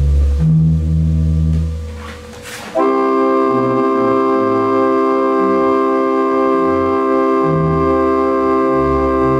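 1865 Forster & Andrews pipe organ being played: low bass pipe notes sound first. About three seconds in, a full chord is held steady on the manual while the bass notes underneath keep changing, as the newly installed bass notes are tried out.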